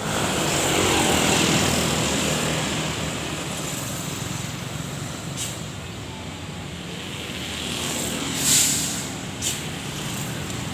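Roadside traffic noise with a heavy vehicle's engine running past. There is a short sharp air hiss about eight and a half seconds in, the loudest moment, and a smaller hiss a second later, like air brakes.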